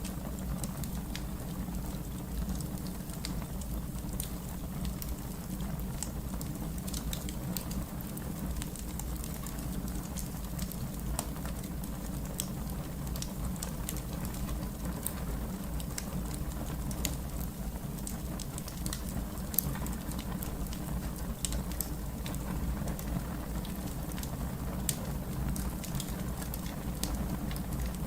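Wood fire crackling, with frequent irregular sharp pops and snaps over a steady low rumble of burning.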